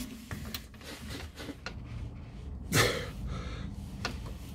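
Socket wrench working a bolt under the car's rear suspension: scattered light ratchet clicks, with a brief louder rush of noise about three seconds in.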